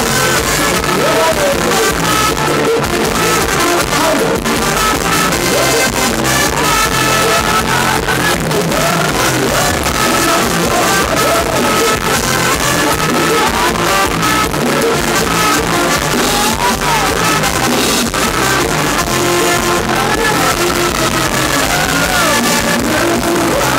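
Live Thai ramwong dance music from a band with a drum kit, played loud through the stage PA, with male voices singing into handheld microphones over it.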